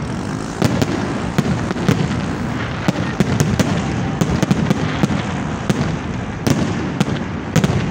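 Fireworks display: aerial shells bursting, with many sharp bangs in quick, irregular succession over a continuous din of further bursts.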